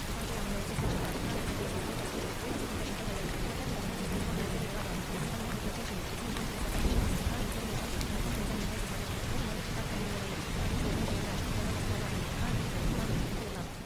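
Steady rain ambience, an even hiss of falling rain with a low rumble underneath that swells about halfway through.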